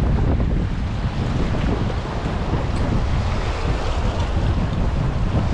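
Wind buffeting the microphone over small waves washing and splashing against the rocks of a granite jetty, a steady rushing noise without a break.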